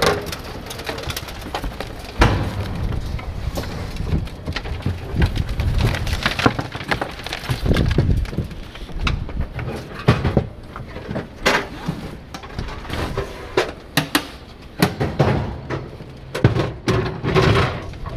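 Metal car trailer rattling and clanking: many irregular knocks and rattles over a low rumble.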